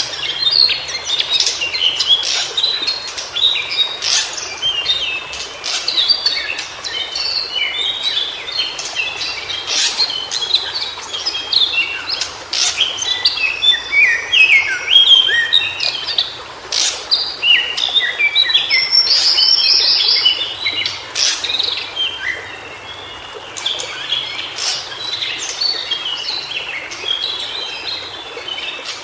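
White-browed shortwing singing: phrase after phrase of rapid, jumbled warbling made of short high notes, with sharp clicks scattered among them.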